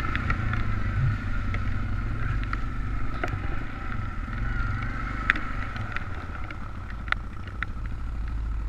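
Quad (ATV) engine running steadily under way, with scattered sharp clicks and knocks.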